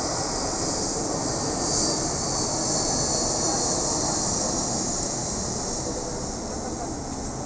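Jet engines of a twin-engine airliner passing low overhead on approach, a steady rushing noise with a strong high hiss that swells a couple of seconds in and eases near the end.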